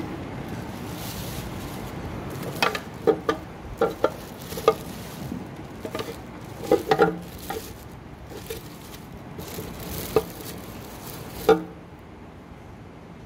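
Plastic parts of a Black & Decker juice extractor being handled: about a dozen sharp clicks and knocks, some in quick pairs, over a steady background hiss. The motor is not running.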